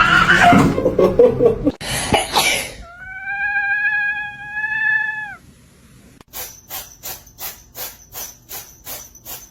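A cat giving one long meow, nearly level in pitch, about three seconds in, after a loud rush of noise at the start. From about six seconds on there is an even ticking, about twice a second.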